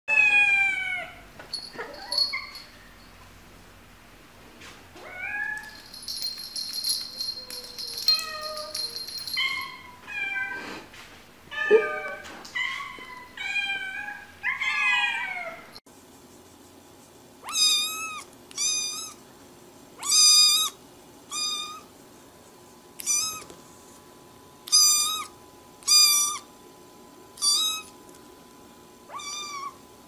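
Cats meowing: a run of varied meows rising and falling in pitch. About halfway through, a young kitten starts meowing over and over, about a dozen short, high meows roughly a second apart.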